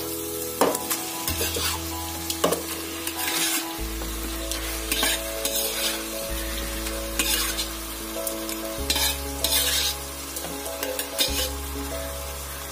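Marinated beef pieces sizzling as they fry in onion-tomato masala in an aluminium pressure cooker. A steel spatula stirs them, and each stroke brings a sharp burst of hiss every second or two. Soft background music with slowly changing chords plays underneath.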